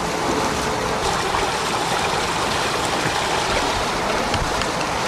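Steady rushing noise of water along the hull of a sailing yacht under way, mixed with wind.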